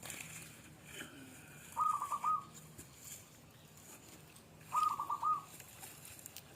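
A bird calling: a short phrase of four or five quick whistled notes at one pitch, given twice about three seconds apart.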